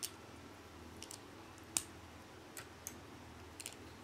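Plastic Lego bricks clicking as small pieces are handled and pressed onto a model: a handful of sharp, short clicks at irregular times, the loudest a little under two seconds in, over a faint steady low hum.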